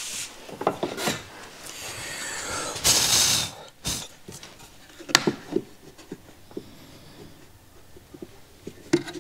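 Wood chips and sawdust being brushed off a plywood board with a few swishing sweeps, the loudest about three seconds in. Then a run of short wooden knocks and taps as a brass-backed tenon saw is set down into a routed cutout in the board.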